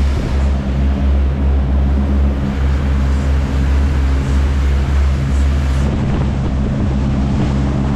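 Fishing boat's engine running steadily under way, a constant low hum, with water rushing and splashing along the hull.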